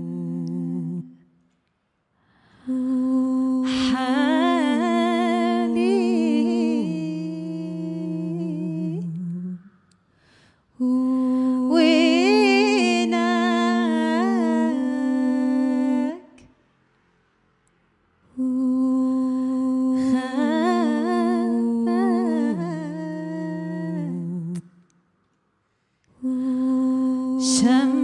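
Wordless humming in slow phrases of about six seconds, separated by short silences: low notes held together under a melody that moves up and down with a slight wobble. The lowest note steps down near the end of each phrase.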